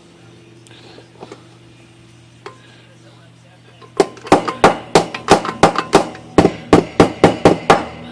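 A quick run of about fifteen sharp hammer blows, roughly four a second, starting about halfway through: metal struck on a steel block to straighten a bent carriage end rail of a Royal 10 typewriter.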